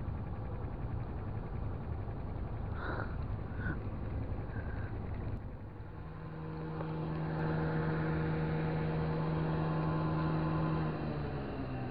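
An engine running with a steady hum that comes in about halfway through and holds, over a constant low rumble. Near the end its pitch dips and then climbs again.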